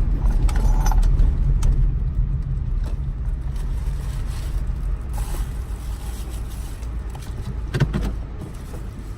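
Car cabin road and engine rumble, a steady low drone that gradually quietens as the car slows to pull over, with a brief click near the end.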